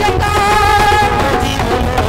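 A woman singing a Hindi devotional bhajan through a microphone over instrumental accompaniment. She holds one long note for about a second in the middle.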